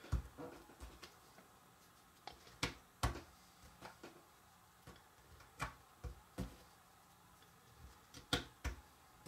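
Jigsaw puzzle pieces being handled and set down on a table: a few light, scattered clicks and taps at irregular intervals.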